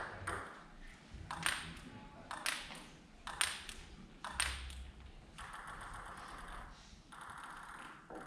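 Table tennis ball clicking in quick pairs about a second apart, off the table and bat. The clicks give way to a few seconds of faint steady noise.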